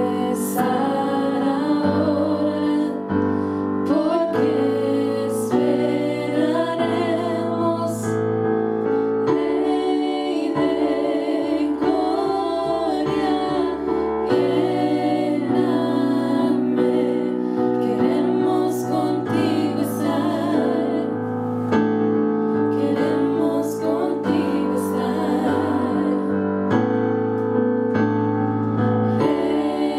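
Three women singing a worship song in harmony into microphones, over sustained instrumental chords.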